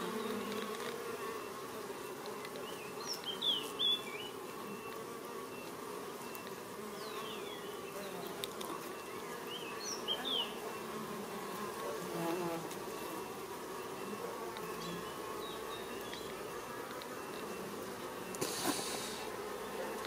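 Honey bee colony humming steadily in an opened hive, the bees busy on the top bars.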